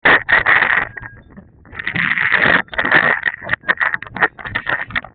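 Snow being cleared: irregular scraping and crunching, some long strokes and then quicker short ones, with a brief lull about a second in.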